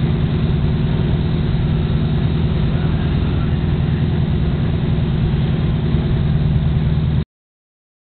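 Enduro race car's engine idling steadily, with no revs, until the sound cuts off abruptly about seven seconds in.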